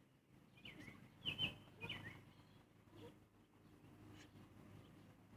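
Faint bird chirps, a few short calls in the first two seconds, then near silence.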